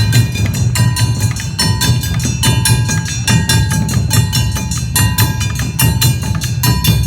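Awa Odori festival band playing a fast two-beat rhythm: rapid clanging strikes of kane hand gongs over taiko drums, with a deep big drum underneath.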